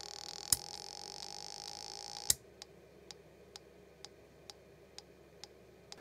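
Small dry-test speakers on a Tesla coil interrupter output panel sounding the interrupter signal as steady buzzing tones, with sharp toggle-switch clicks as the outputs are switched off. After the third click, about two seconds in, the tones cut off suddenly, leaving only faint ticks about twice a second.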